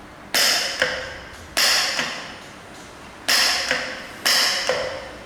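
Solenoid valve of a CO2 jet machine snapping open and shut in short manual bursts: each burst is a sharp click into a hiss of about half a second, cut off by a second click. It fires four times, with a fifth burst starting near the end.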